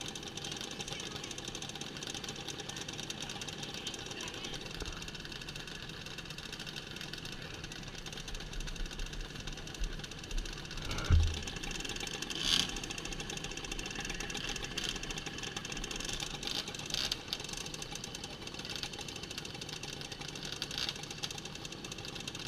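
Mopeds idling steadily, the nearest engine loudest, with a rapid small-engine clatter. A single low thump about eleven seconds in, followed by a short sharp click.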